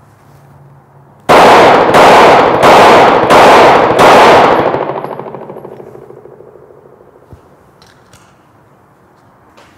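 Five pistol shots in quick succession, about two-thirds of a second apart, each loud and sharp, with a long echo off the range that dies away over a couple of seconds after the last shot. A few faint clicks follow near the end.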